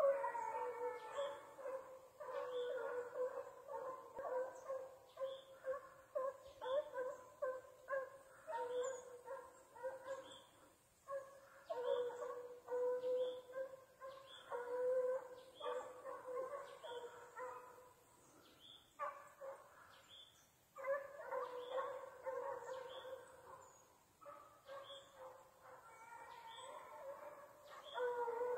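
Hunting hounds baying in a long series of drawn-out howls, the voice of hounds working a deer's scent trail.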